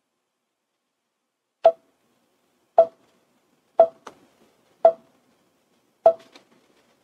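Five short pitched clicks with a brief ring, roughly one a second, the third and fifth each followed by a fainter tick.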